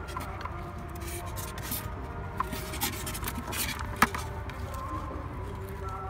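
Handling noise from a plastic bucket and a polystyrene foam lid being fitted into its rim: light rubbing and scraping with scattered small clicks, and one sharper click about two thirds of the way through.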